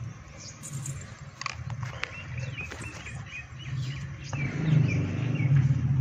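Goats giving low, throaty calls that grow louder about two-thirds of the way through, with small birds chirping in quick runs.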